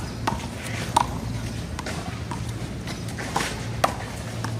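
Small rubber handball being slapped by hand and bouncing off the concrete wall and court during a one-wall handball rally: a run of sharp, irregularly spaced smacks with a short ring, over a steady low hum.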